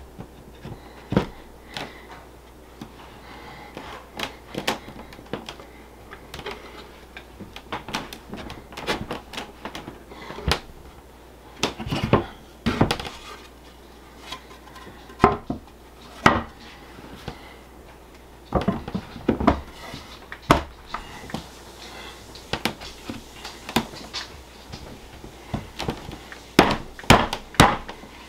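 Irregular wooden knocks, taps and clatter as finger-jointed cedar boards are handled and fitted together on a table, with clusters of sharper knocks about halfway through and near the end.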